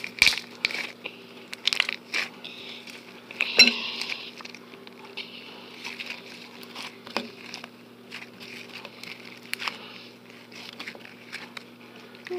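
Fluffy slime being squished and stretched by hand, making irregular sharp clicks and crackly popping sounds.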